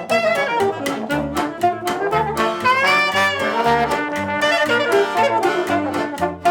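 Band music with horns over a steady drum beat and bass; a held, wavering horn line stands out about three seconds in.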